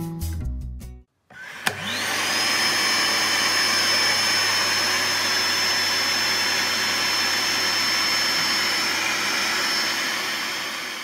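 Air bed's built-in electric pump starting with a click and running steadily to deflate the mattress. A high whine rises as it spins up, then holds over the rush of air, and eases off near the end.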